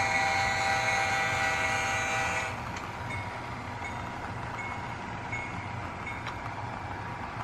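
Diesel locomotive horn sounding a multi-note chord that cuts off about two and a half seconds in. After it comes a steady hiss of rain with a few faint clicks.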